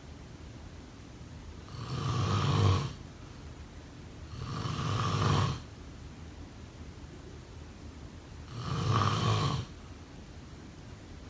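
A person snoring: three snores of about a second each, with pauses of a few seconds between them. Each one swells and then stops abruptly.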